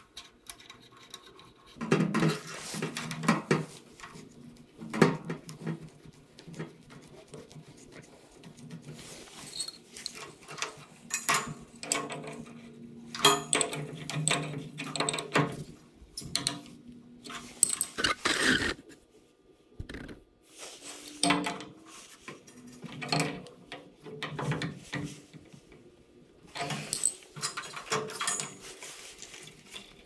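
Hand-tool and handling noises at a gas water heater's control valve: irregular metallic clicks, knocks and scrapes of an open-end wrench and fittings as the burner assembly's tube nuts and thermocouple line are worked. A short lull comes about two-thirds of the way through.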